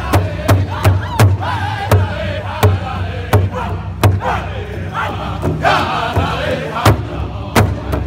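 A powwow drum group singing together in chorus while striking one large hide-covered drum in unison with padded sticks, about three beats a second. The beats thin out in the middle while the voices carry on, then come back steady near the end.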